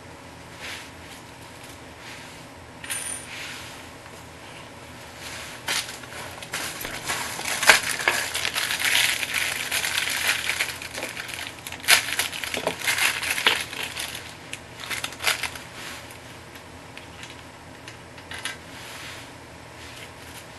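Small clinks, clicks and rustling of gloved hands fitting hardware onto a toilet's brass closet bolt at the base of the bowl. The handling is busiest in the middle, with a few sharp clicks, loudest about 8 and 12 seconds in.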